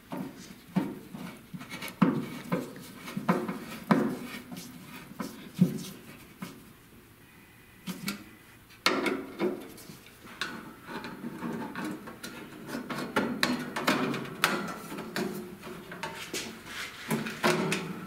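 Screwdriver driving screws into the sheet-metal control plate of a propane furnace: scattered metal clicks, knocks and scrapes, with a short lull about six seconds in before busier scraping and handling of the sheet-metal panels.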